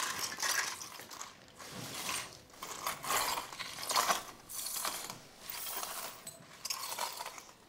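Debris being scraped up off a hard floor by hand: a run of irregular scraping and rustling strokes.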